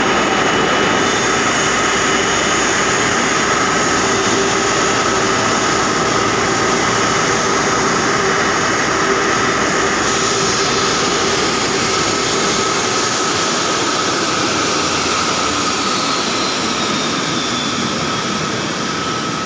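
Airbus A330 turbine noise close by on the apron: a steady rush with a high whine and a few steady tones. It eases slightly near the end, where a faint tone falls in pitch.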